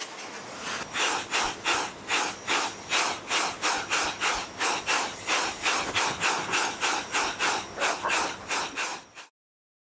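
Power drill boring holes in a thin sheet-metal strip, in a quick, even series of short grinding bursts, about three a second. The sound cuts off suddenly near the end.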